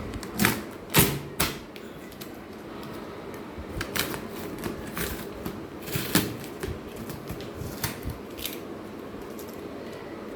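Package being handled and opened: irregular sharp clicks, taps and rustles of cardboard and packing, loudest in the first second and a half.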